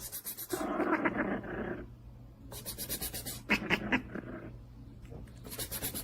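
A cat making sounds in a few short bursts of rapid pulsing, with quieter gaps between them.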